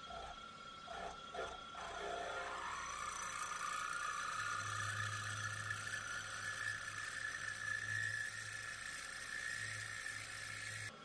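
Mill-drill spindle running as an 8.5 mm drill bit sinks a counterbore for cap-head bolts into a billet aluminium block: a steady motor hum under a whine that rises slightly in pitch. A few light knocks come in the first couple of seconds.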